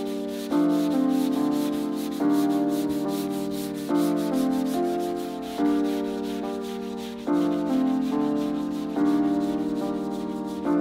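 Background music: sustained keyboard chords, a new one struck about every second and a half and fading away, with a light steady tick above. Under it, the rasp of hand sanding on car body filler.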